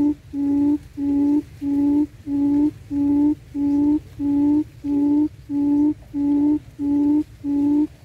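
Buttonquail lure call: a low hooting note repeated steadily and evenly, nearly twice a second, sounding from the trap cage to draw wild buttonquail into the snares.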